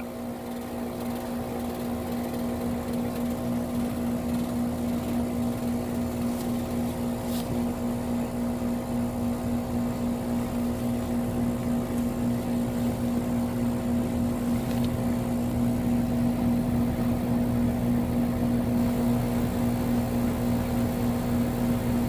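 Outdoor unit of a heat pump / air conditioner running, its compressor and condenser fan making a steady hum with a strong low tone, the fan discharge partly restricted by a charging jacket over the top. The hum grows slowly louder, with a couple of faint clicks.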